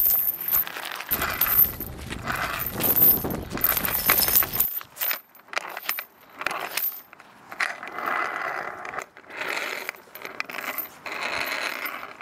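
Heavy steel chain dragged over asphalt and concrete pavement, scraping and clinking link against link in an uneven rattle.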